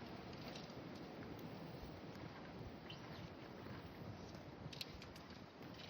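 Faint steady wind noise, with a few light clicks and rustles scattered through it.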